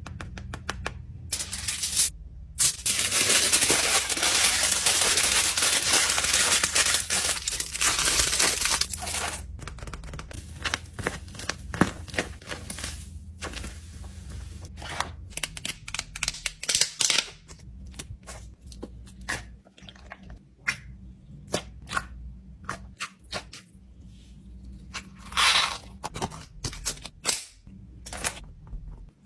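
Plastic fidget toys and packing items being handled: several seconds of continuous rustling, then many scattered clicks and taps as toys are set down and moved, with one more short rustle near the end.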